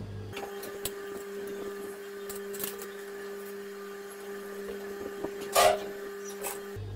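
Electric sewing machine running steadily as it stitches fabric, a constant motor hum with a few light clicks and one louder clack about five and a half seconds in.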